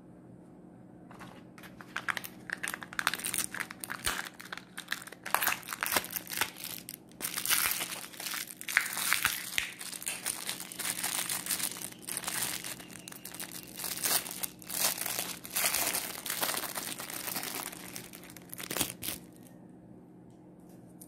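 Plastic wrapping crinkling and rustling in dense crackly bursts as a small clear Kinder Joy toy packet is handled and opened. It starts about a second in and stops shortly before the end, over a faint steady low hum.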